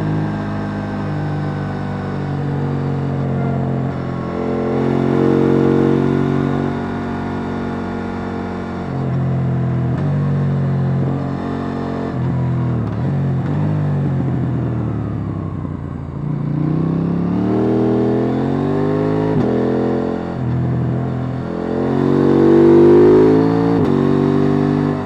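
KTM 890 Duke R's parallel-twin engine on its stock exhaust, heard on board while riding. The revs hold and step with gear changes, then fall away for a few seconds as the bike slows about two-thirds of the way through. The engine then pulls hard again, its pitch rising to its loudest near the end.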